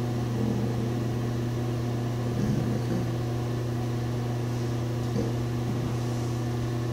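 Steady low machine hum, unchanging, with a few faint soft handling sounds on top.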